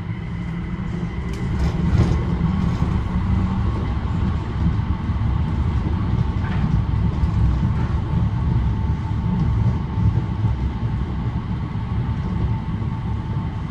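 Busan Metro Line 4 rubber-tyred light-metro train running between stations, heard inside the passenger car: a steady low rumble with a faint steady whine, and a few light clicks about two seconds in.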